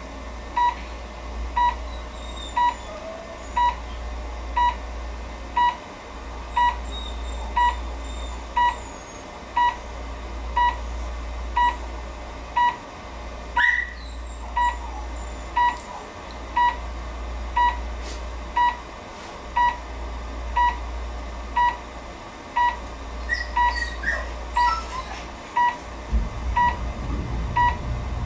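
Aspen Class IV veterinary therapy laser emitting short, even beeps about once a second, the audible signal that the beam is on during treatment, over a steady low hum.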